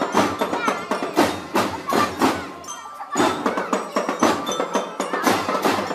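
Marching drum band playing: repeated drum strikes with bell-like mallet percussion ringing over them.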